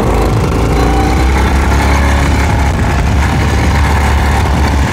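Two-wheel walking tractor's small engine running steadily and loudly under load as it pulls a plough through the soil, a constant low hum.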